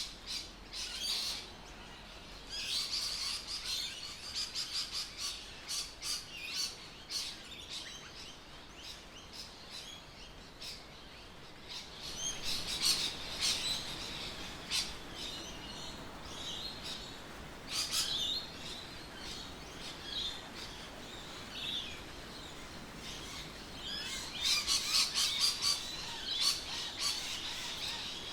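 Birds chirping and calling, with quick runs of short, high chirps that come in three busier spells: about three seconds in, around twelve to fifteen seconds, and near the end.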